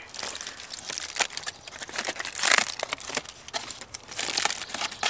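Aluminium foil crinkling in the hands as a foil packet is handled and folded, in irregular rustles that are loudest about halfway through.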